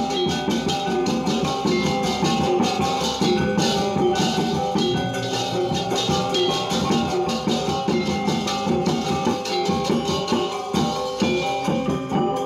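Balinese gamelan gong ensemble playing: bronze metallophones and gongs with fast, dense strokes over ringing tones, backed by drumming.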